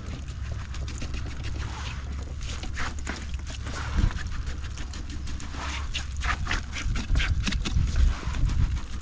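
Wet plastic mesh whitebait net crinkling and rustling as it is handled, an irregular patter of crackles that grows busier in the second half, over a low rumble.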